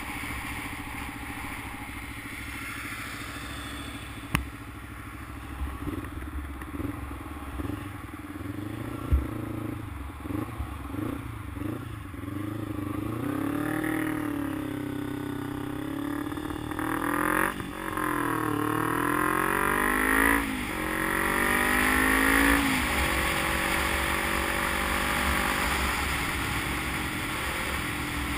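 Sport motorcycle engine heard from the rider's position with wind on the microphone. It pulls gently at first, with a couple of sharp knocks. About halfway through it accelerates through the gears, the pitch climbing and dropping back at each of about three shifts, then settles to a steady cruise.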